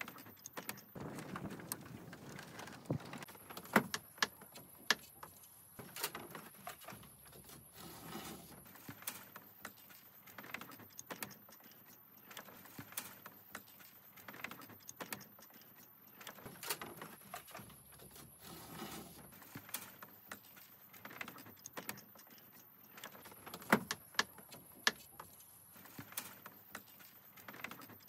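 Bamboo poles knocking and clacking against each other and the wooden frame as they are handled and fitted, in scattered sharp knocks, a few of them much louder than the rest.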